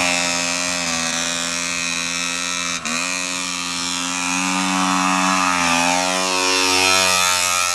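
Small two-stroke engine of a GasGas TXT Boy junior trials motorcycle running at low, fairly steady revs, with a brief dip about three seconds in and a gentle rise in pitch later on as it is ridden.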